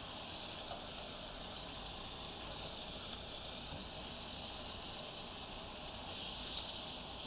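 Lamb chops sizzling steadily in a little oil in a hot pan, searing brown.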